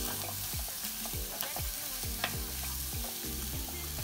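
Wooden spoon stirring sliced onions and boiled beef in a metal saucepan, a quick series of scraping strokes about three to four a second, over a steady sizzle from the pot on the gas burner.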